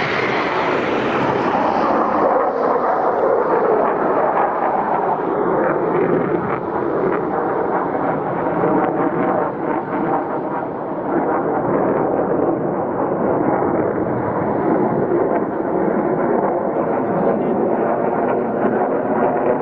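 Jet engines of Blue Angels F/A-18 Super Hornets flying overhead in formation: a loud, steady roar whose high hiss fades away over the first few seconds.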